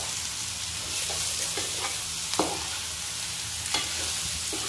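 Bitter gourd, onion and paneer sizzling in a non-stick kadhai over a high gas flame while a steel spoon stirs and scrapes through them, with a steady hiss and scattered spoon clicks, the sharpest about halfway through.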